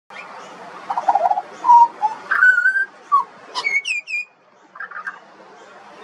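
Juvenile pied butcherbird singing: a run of varied short notes, some held level and some gliding up or down in pitch, with a brief lull about four and a half seconds in.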